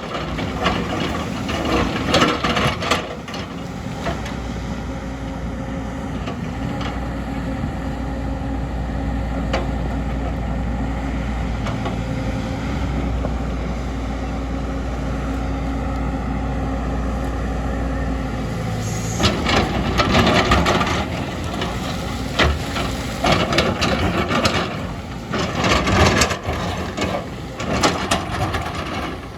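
Excavator's diesel engine running steadily under load. About two-thirds of the way through it gives way to irregular knocking and scraping, typical of the bucket working earth and rock.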